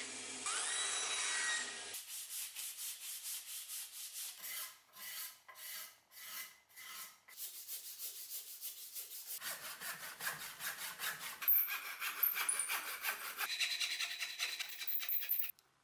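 A bandsaw cutting a wooden block for about two seconds. Then evenly spaced scraping strokes of a hand tool shaping the wooden axe handle. From about ten seconds in, a hand saw cutting through the wooden handle with quick back-and-forth strokes, stopping abruptly just before the end.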